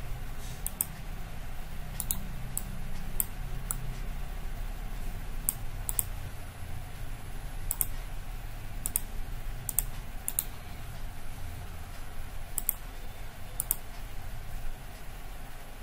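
Clicking at a computer while wiring a schematic: short sharp mouse and keyboard clicks, many in quick pairs, at irregular gaps of about a second, over a low steady room hum.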